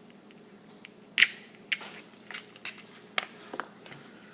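Sharp clicks and taps of small metal parts as a pin is worked out of a Glock 19 frame and parts are lifted free. One loud click comes a little over a second in and another about half a second later, then a run of lighter clicks.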